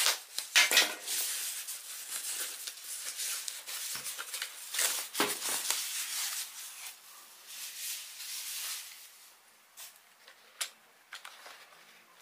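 Thin plastic wrapping rustling and crinkling as a keyboard is pulled out of it. The rustling dies down about nine seconds in, followed by a few light knocks.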